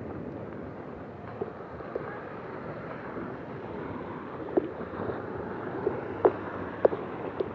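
Heavy hail and rain falling in a steady hiss, with a handful of sharp knocks of hailstones striking close by, the loudest about six seconds in.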